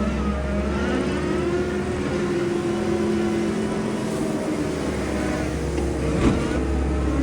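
New Holland C362 skid steer's diesel engine running while working, its note rising and falling, with a single sharp knock about six seconds in.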